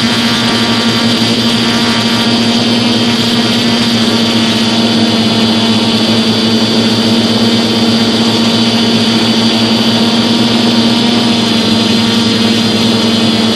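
DJI F450 Flamewheel quadcopter's four brushless motors and propellers whirring steadily in flight, heard up close from a phone mounted on the frame. The tone holds level throughout, a loud hum with a strong low note and a buzzy overtone.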